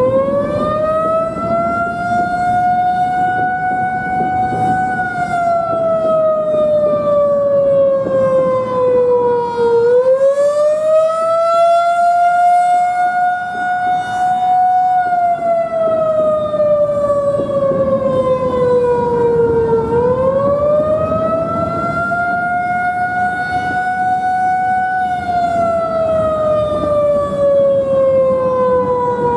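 Federal Signal 2001-130 rotating outdoor warning siren sounding the attack signal. Its single tone rises for about five seconds and falls for about five, going up and down three times.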